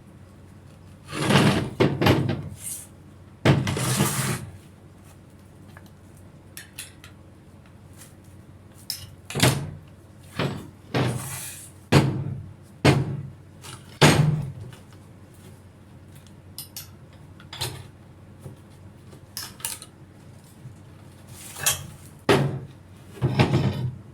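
Irregular metallic clanks, knocks and scrapes of tools and parts being handled and set down during the demolition hammer's repair, about a dozen separate bursts with brief pauses between.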